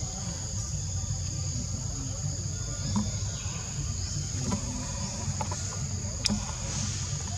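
Forest ambience: insects droning steadily at a high pitch over a low rumble, with a sharp click about six seconds in.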